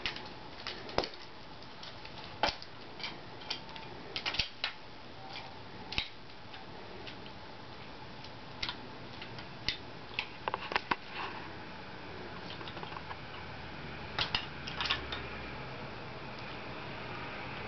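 Wooden toy train set being handled: irregular light clicks and knocks as the train cars and track pieces bump together, sometimes several in quick succession.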